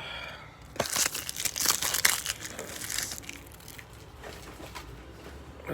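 Crinkling and rustling of model-kit packaging, plastic parts bags and wrapping, handled and pulled out of the box; the loudest crackling is in the first half.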